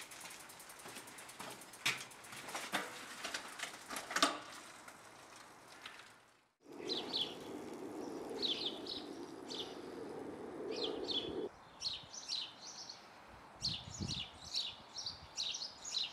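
Clicks and knocks as a bicycle is wheeled along, its freewheel ticking. After a sudden break, small birds chirping repeatedly over a steady rushing noise that cuts off abruptly about halfway through.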